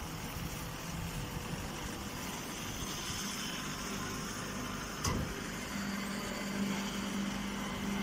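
Baling machinery running with a steady mechanical hum, a single knock about five seconds in, and a low steady tone that comes up about a second later.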